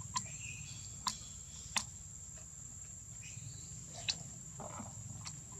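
A steady, high-pitched insect drone, with five short sharp clicks spread through it.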